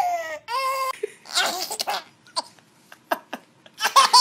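A baby crying, two short falling wails in the first second, then after a quiet stretch a young infant laughing in loud bursts near the end.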